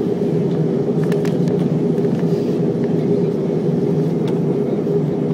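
Steady cabin drone of an Airbus A321 in flight, its engine and airflow noise heard from a window seat as an even low rumble with a steady hum, broken only by a few faint clicks.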